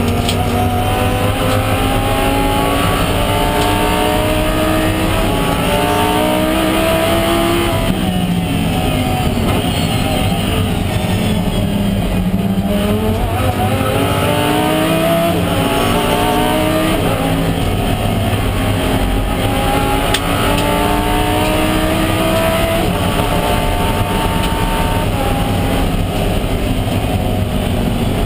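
Race car engine heard from inside the cockpit, pulling hard through the gears: the pitch climbs again and again and drops back at each upshift. Around the middle the pitch falls steadily under braking and downshifts, then it climbs through the gears again.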